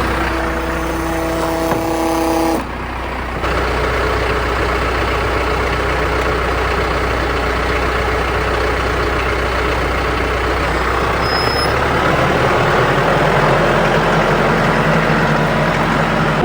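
Diesel tractor engine running steadily. A pitched tone sounds over it for about the first two seconds.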